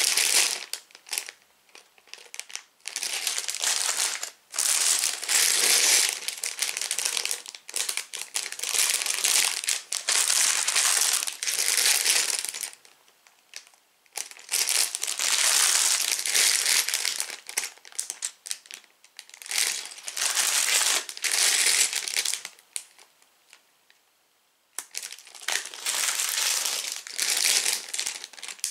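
Clear plastic bags of LEGO bricks crinkling as they are picked up and handled one after another, in repeated bursts with short pauses between.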